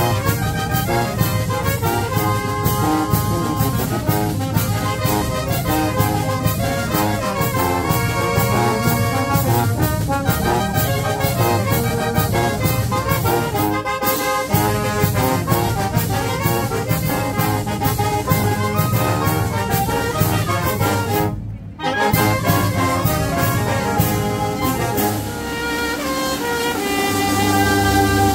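Mexican wind band (banda de viento) of saxophones, clarinet, trumpets, trombones, sousaphone and drums playing a tune over a steady drum beat. The sound cuts out for a moment a little over 20 seconds in.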